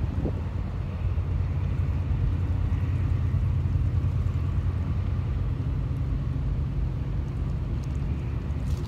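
Harbour waterfront ambience: a low, steady rumble.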